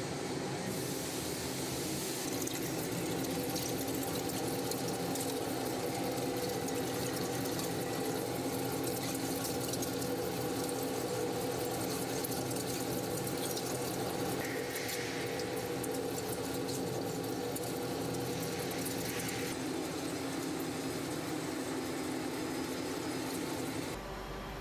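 Machinery running steadily: a constant mechanical hum with a dense hiss and crackle over it. It changes abruptly near the end.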